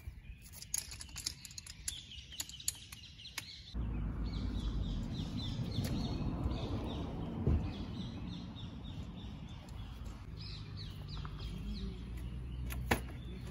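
Birds chirping with a quick, repeated high call, over scattered light clicks in the first few seconds. About four seconds in, a low steady rumble comes in, and there is a single sharp snap near the end.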